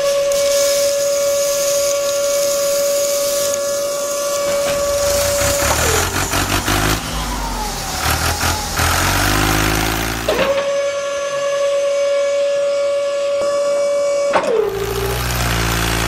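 A small electric motor whirring at a steady high pitch, winding down about six seconds in. It spins up again about ten seconds in, holds for about four seconds and winds down again. A lower rumble fills the gaps between the two runs.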